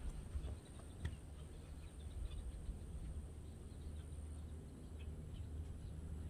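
Open-marsh ambience: faint, scattered short bird chirps over a steady low wind rumble on the microphone, with a thin steady high tone that stops about two-thirds of the way through.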